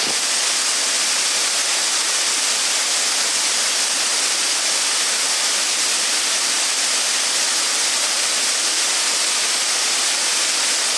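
Shiraito Falls, many thin streams of water falling over a wide cliff into the pool below, giving a steady rushing hiss.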